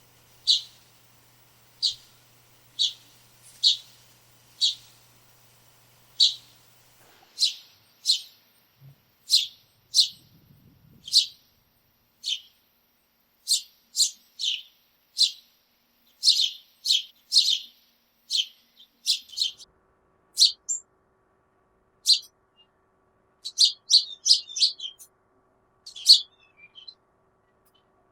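House sparrows chirping: short, sharp chirps repeated about once a second at first, then coming faster and overlapping, with a quick run of chirps near the end.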